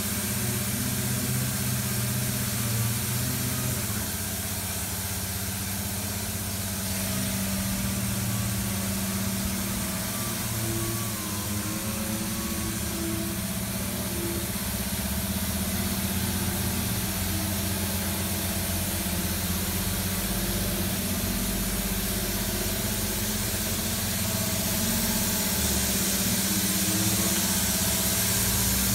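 A steady low mechanical hum like an idling engine, with an even hiss above it and no distinct knocks or changes.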